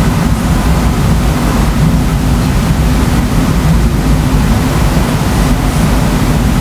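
Continuous low rumble of distant thunder from a supercell thunderstorm, going on without a break and with no distinct clap.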